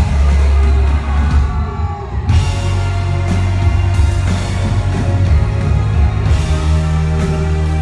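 Live rock band playing loud with drums, electric guitars and keyboards over heavy bass. The cymbals and high end drop out for under a second, about a second and a half in, then the full band comes back in.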